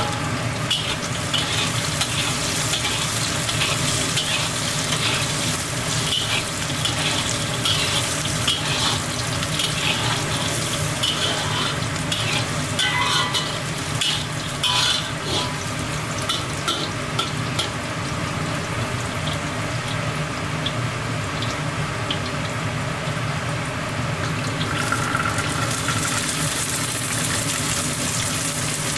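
Food sizzling as it is stir-fried in a pan, with a spatula repeatedly scraping and clinking against the pan. The scraping is busiest for the first two-thirds and thins out near the end, over a steady low hum.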